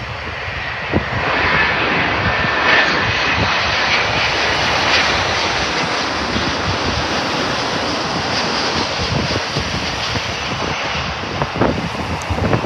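Rolls-Royce Trent 1000 jet engines of a Boeing 787 passing low overhead on final approach to land. The noise swells about a second in, with a whine riding on it for the next couple of seconds, then holds steady and eases slightly near the end.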